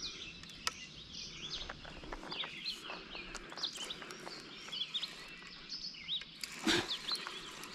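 Birds chirping: many short, high, overlapping chirps and calls over a faint outdoor background. A few faint clicks, and a louder knock about two thirds of the way in.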